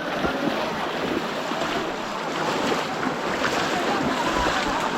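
Shallow floodwater splashing and sloshing irregularly as several people wade through it with polo fishing traps.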